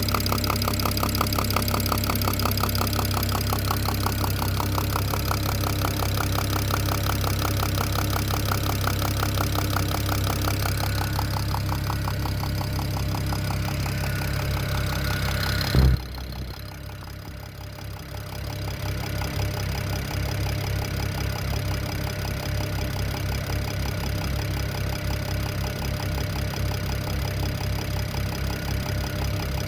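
BMW N54 twin-turbo 3.0-litre straight-six idling with a fast, regular knock, which the owner thinks may come from the top end of the engine but is not sure. About sixteen seconds in there is a single loud thump, after which the engine sounds quieter and duller.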